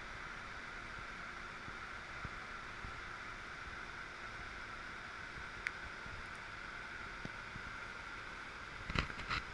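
Steady cabin hiss of a Bombardier Global Express business jet's cockpit in high-altitude cruise: airflow and air-conditioning noise. A faint click about halfway through and a couple of knocks near the end.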